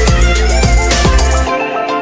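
Background electronic music with a heavy bass and a beat; the bass and drums drop out about one and a half seconds in, leaving lighter synth notes.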